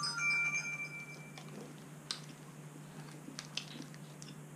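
Faint chewing of a chocolate-covered Turkish delight bar, with a few sharp clicks, over a steady low hum. A short steady tone sounds in the first second or so.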